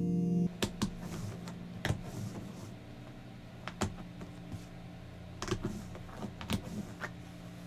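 Soft ambient music cuts off about half a second in. After it come about a dozen light, irregular clicks and taps of cardboard jigsaw pieces being picked up and pressed into place on a tabletop as the last pieces of the puzzle are fitted.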